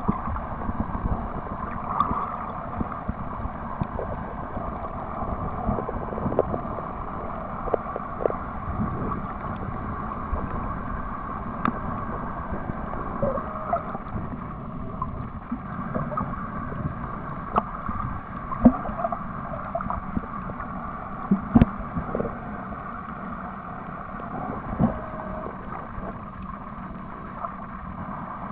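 Muffled underwater noise picked up by a camera submerged on a coral reef: a steady low rush of moving water, broken by scattered clicks and a few louder knocks.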